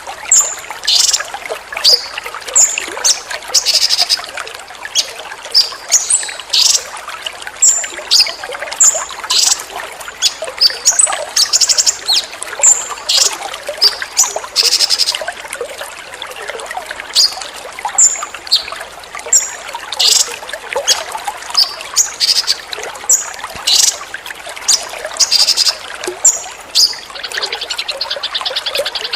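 Water trickling steadily under a songbird's short, sharp, high calls repeated in quick succession: the 'tembakan' calls used in bird-training recordings. Near the end a continuous fast, high trill takes over from the separate calls.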